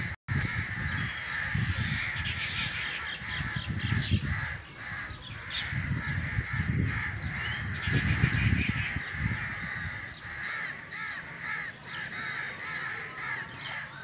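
Crows cawing over and over, several calls overlapping at once, with a quicker run of caws near the end. Bursts of low rumble, wind on the microphone, come and go under the calls through most of the stretch.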